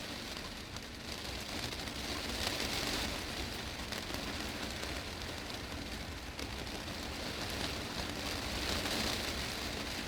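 Heavy rain falling on a glass greenhouse roof, a steady dense patter that swells twice.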